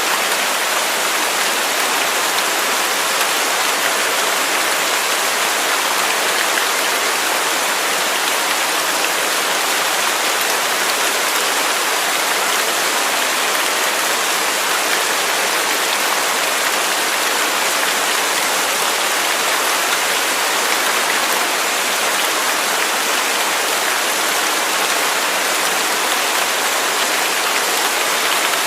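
Waterfall: water rushing steadily and unchanging, a bright hiss with little deep rumble.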